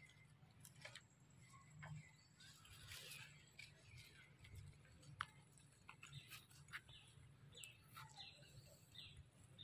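Near silence, with a few faint, short high bird chirps and scattered faint ticks.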